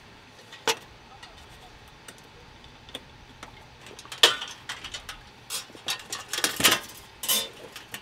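Metal clicks and clinks of a gas canister, hose fitting and remote burner being fitted into a stainless steel camp table frame: one sharp click about a second in, then a quick run of clinks and knocks through the second half.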